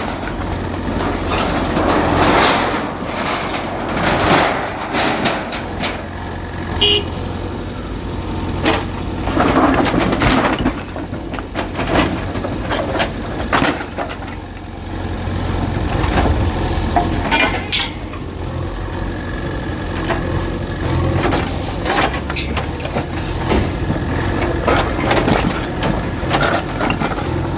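Bulldozer engine running steadily, with repeated cracks and knocks of a structure being broken up in demolition.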